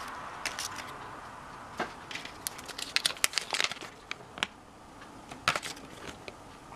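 Thin paper Kinder Surprise leaflet being unfolded and handled, crinkling in short, irregular bursts that are busiest around the middle.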